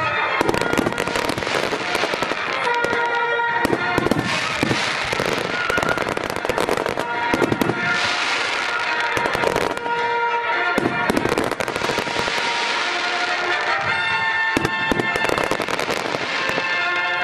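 A fireworks display going off in a dense, continuous barrage of bursts and crackling, with music playing alongside.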